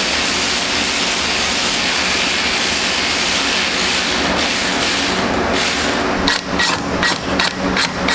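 Steady rushing noise, with a run of sharp clicks and knocks from hand tools on metal parts in the engine bay in the last couple of seconds.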